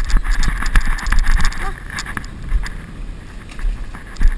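Wind buffeting the microphone in gusts, with a low rumble and scattered clicks and rustles; it eases about two seconds in.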